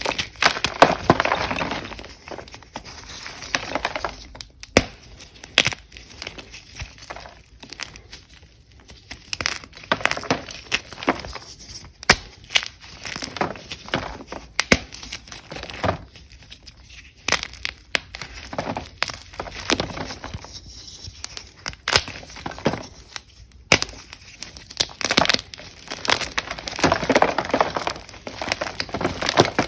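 Ader gym chalk blocks being crushed, with irregular sharp crunches and crackles of crumbling chalk. The crunching comes thickest at the start and again near the end.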